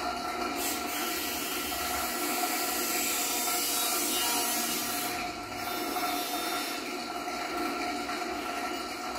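A handheld whisk-like tool worked against objects and paper, giving a harsh rubbing, scraping noise in two long stretches, a short break between them about five seconds in. Under it runs a steady hum of two held tones.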